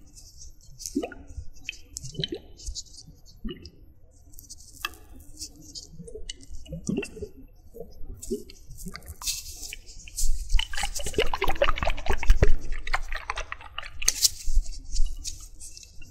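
Close-up wet squelching and dripping sounds, sparse at first, then a dense, louder run of crackling squishes from about ten seconds in.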